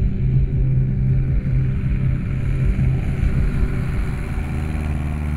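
Light single-engine propeller airplane's engine droning steadily as it flies past, the tone dropping lower about four seconds in.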